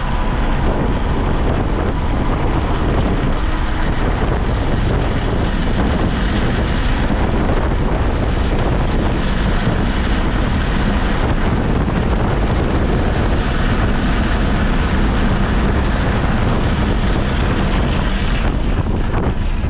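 Onboard sound of a car running at speed on a race circuit: engine and road noise under heavy wind buffeting on the microphone, steady throughout.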